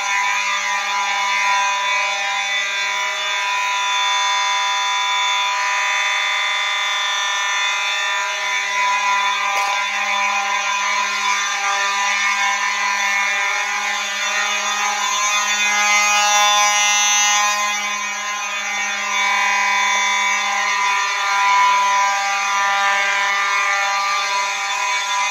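Two Simplex 4903-series mechanical horns, a 4903-9219 and a 4903-9217, sounding together continuously in a loud, steady harmony, one pitched a hair higher than the other.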